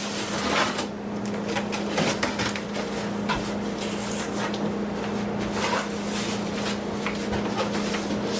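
A large cardboard shipping box being opened and handled: irregular crackles, rustles and knocks of cardboard flaps and packing. A steady low hum runs underneath.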